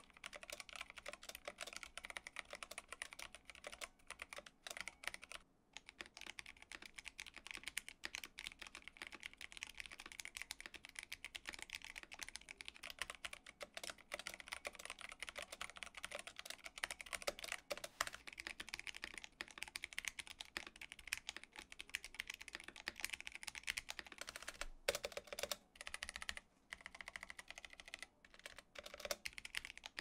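Fast, continuous typing on a stock Drop CTRL mechanical keyboard with unlubricated switches and unmodified stabilizers: a dense clatter of key strikes. Near the end, after a few short breaks, the typing moves to a Drop ALT with lubed switches and modded stabilizers.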